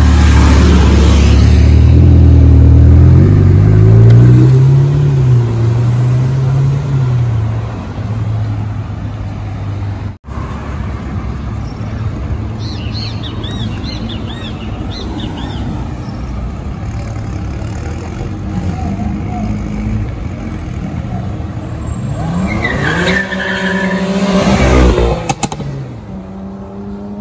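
Ferrari 488 Pista's twin-turbo V8 revving loudly, its note rising and falling over the first several seconds. After a cut there is street traffic. About 22 seconds in, another car accelerates hard, its engine note climbing in a series of rising sweeps as it shifts up, loudest about 25 seconds in.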